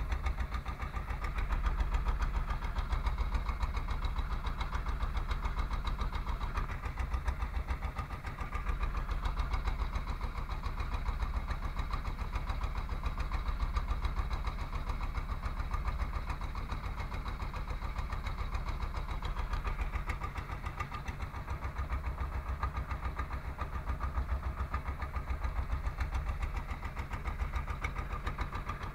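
The inboard engine of a small wooden fishing boat running steadily under way, with a fast, even beat and a wash of sea and wind noise over it.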